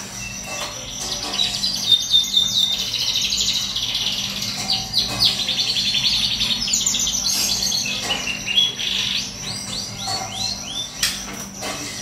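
Caged canary singing: long runs of rapid trills and chirps, the notes coming in fast repeated series and changing pitch from phrase to phrase.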